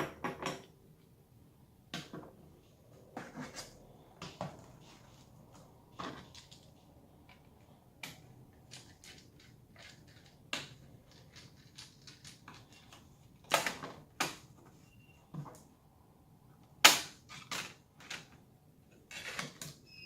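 Scattered clicks, taps and knocks of hand tools and plastic casing as an HP ProBook 440 G5 laptop is taken apart, with a few sharper knocks about halfway through and again a few seconds later.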